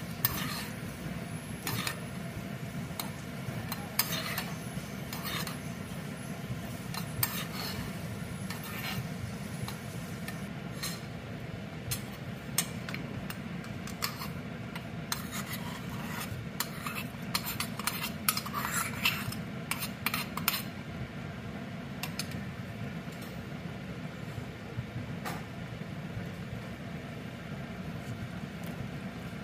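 Cooking utensils clinking and scraping against pans. A metal spoon stirs cashews and raisins frying in ghee in a small pan, then they are scraped into a stainless-steel pressure cooker and stirred in with a wooden spatula. There is a busy run of clatter about two-thirds of the way through, over a steady low hum.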